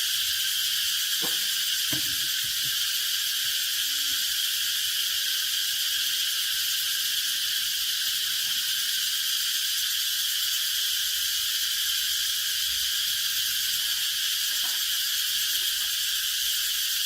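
Steady, high-pitched chorus of insects, unbroken and even in level, with a couple of faint knocks about a second and two seconds in.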